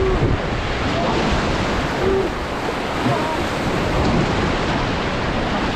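River water rushing steadily around a rafting boat, with wind buffeting the microphone.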